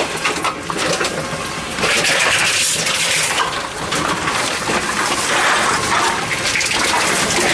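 Tomra T-63 HCp reverse vending machine running as containers are fed in: a continuous rushing clatter with many small clicks.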